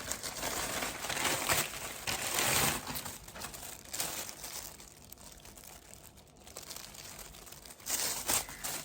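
Plastic mailer package being handled and opened: irregular crinkling and rustling of plastic, dying down in the middle and picking up again near the end.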